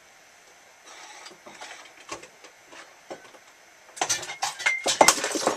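Someone rummaging through tools while searching for a pair of tweezers: light rustling and scattered clicks, then a loud run of clattering and knocks about four seconds in.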